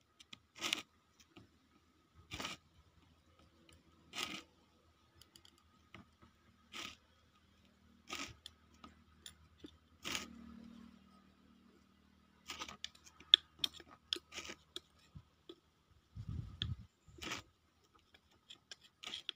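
Short scraping, crunching noises every second and a half to two seconds as fingers press and smooth a sulfur paste into the mouth of a small clay pot. A low thud comes near the end.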